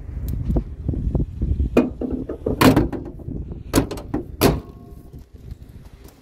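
Hood of a 1998 Chevrolet Silverado pickup being lowered and pushed shut, with a few sharp metal clunks and latch clicks, the loudest near the middle.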